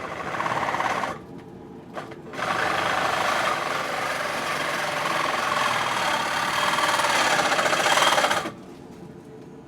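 Power saw cutting through the 2-inch cold water main: a short first run, then after a brief pause a steady cut of about six seconds that stops abruptly near the end.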